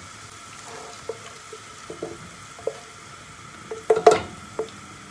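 Sausage frying in oil in a pan, a steady sizzle with a utensil stirring and tapping against the pan at irregular intervals; a louder clatter about four seconds in.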